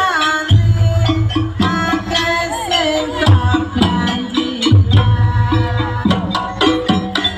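Live jaranan ensemble music: hand drums beating a driving rhythm with repeated deep booming strokes and sharp slaps, under a melody that bends up and down in pitch.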